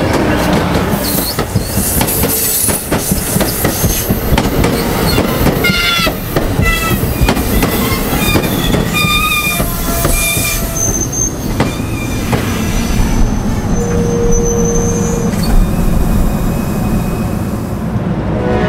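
NJ Transit ALP-45DP locomotive and its bilevel passenger coaches passing close by at speed. Steady wheel-on-rail rumble with clicks over rail joints and scattered high wheel squeals.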